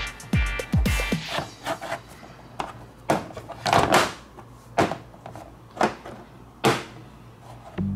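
Toys being handled: scattered knocks and clatters, one at a time with pauses between. A short tail of background music with a beat ends about a second in.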